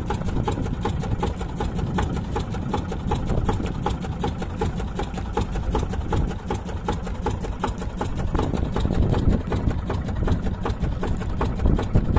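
Small fishing boat's engine running steadily, with a rapid, even clatter over a low rumble.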